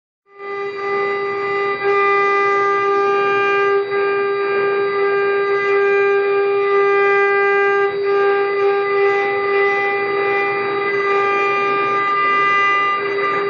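High-speed spindle motors of a multi-head CNC wood carving lathe whining steadily at one high pitch, with the rasping noise of the cutters carving the turning wooden blanks.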